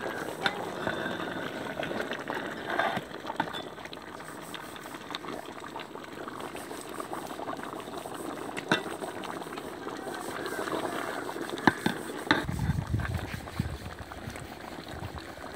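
Chicken and tomato gravy bubbling at a rolling boil in a large metal pot, with a few sharp clinks of a metal spatula against the pot as the chicken is stirred.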